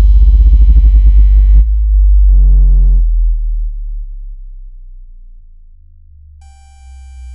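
Synthesized water-eject tones: very deep bass tones meant to vibrate water out of earbud speakers, with a fast-pulsing buzzy layer for the first second and a half. A short higher chord comes about two seconds in, then the bass fades down, and a set of high steady tones enters near the end.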